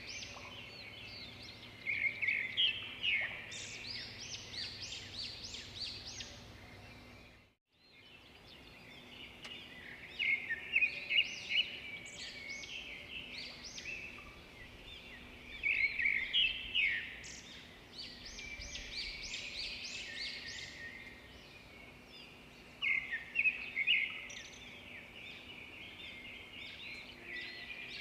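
Several songbirds chirping and trilling in a dense chorus, with louder phrases every few seconds. The sound cuts out completely for a moment about a quarter of the way through.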